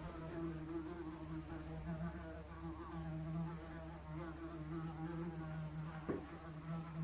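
A fly buzzing, its wingbeat hum continuous and wavering slightly in pitch, with a faint tap about six seconds in.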